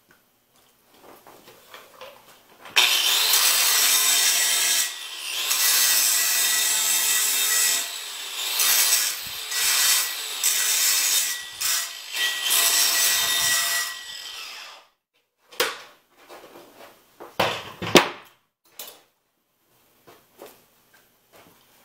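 Power grinder working a steel pipe, with a steady high whine under the grinding noise, in passes that ease off briefly several times and stop about 14 seconds in. After it, scattered knocks of tools being handled, with one loud thump.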